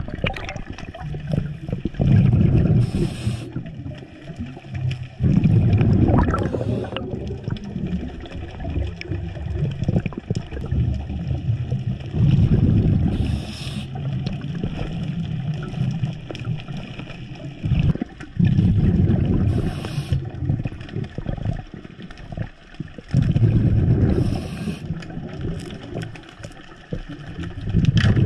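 A scuba diver breathing underwater through a regulator: a burst of exhaled bubbles rumbling and gurgling every five to six seconds, several of them with a short hiss.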